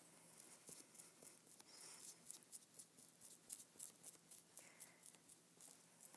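Faint, irregular scratchy strokes of a foam brush spreading a thin layer of white wood glue across a wooden plaque.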